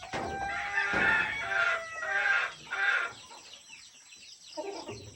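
A rooster crowing: one crow of about three seconds in several broken syllables, followed by a short, fainter call near the end.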